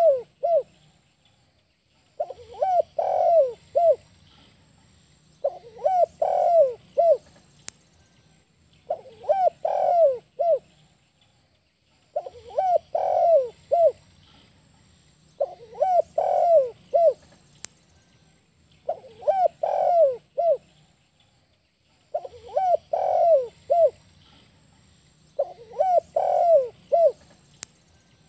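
Spotted dove (tekukur) cooing in its breeding-condition song, the same short phrase of several notes repeated about every three and a half seconds, roughly eight times.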